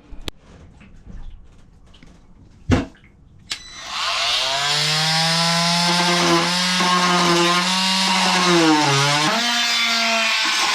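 A few knocks, then an electric power saw starts about four seconds in and runs steadily, cutting a small wooden ledger board; its pitch drops briefly and then shifts near the end as the blade works through the wood.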